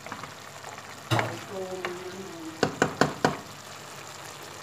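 Wooden spatula stirring rice in a speckled stone-coated cooking pot, with a scrape about a second in, then four quick knocks of the spatula on the pot, over a steady low sizzle from the simmering rice.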